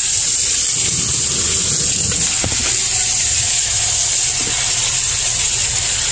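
Steady machine noise: an even hiss over a low hum, unchanging throughout.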